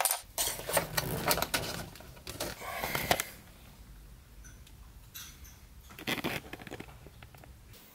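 Handling noises of small furniture parts being worked in under a wardrobe base: a quick run of sharp clicks, knocks and scrapes over the first three seconds, then a few fainter clicks.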